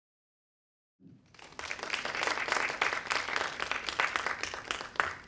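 Audience applauding: many hands clapping start about a second in, build quickly and die away near the end.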